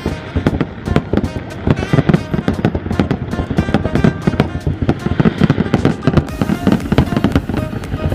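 Aerial fireworks bursting in rapid succession, a dense run of bangs and crackles, with music playing alongside.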